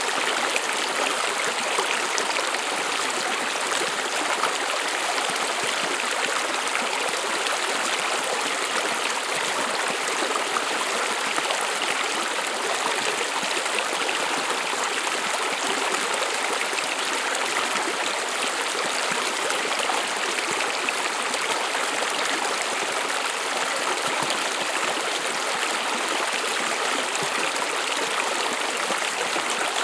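A small stream running over stones: a steady, unbroken rush of water with a fine trickling texture.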